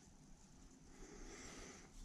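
Near silence: faint room tone between handling sounds.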